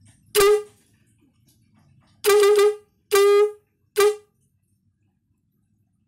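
Cicada Scania-style truck air horn, with a cast-iron body and an aluminium diaphragm, fed by compressed air through a solenoid valve, sounding four loud blasts of one steady note: a short toot, two longer blasts of about half a second, and a short toot.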